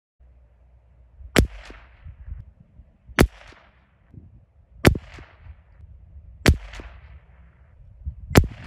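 A .22LR rifle firing SK Rifle Match ammunition: five single shots at a slow, even pace, about one every 1.7 seconds, making a five-shot group. A low steady rumble runs between the shots.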